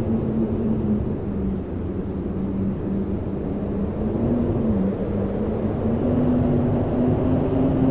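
Wind howling: a low moaning tone that wavers, dips briefly about two-thirds of the way through, then climbs slightly, over a steady rumble of gusting air.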